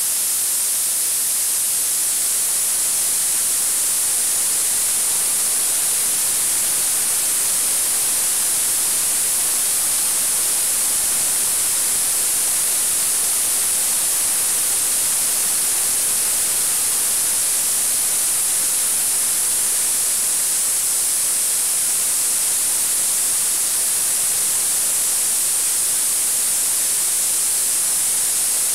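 Ultrasonic cleaning tank running: a steady, even hiss from the cavitating bath, strongest high up.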